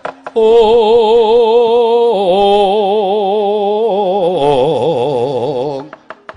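Solo voice singing a Javanese tembang in long held notes with wide vibrato. The pitch steps down about two seconds in and again past the middle, and the voice stops near the end.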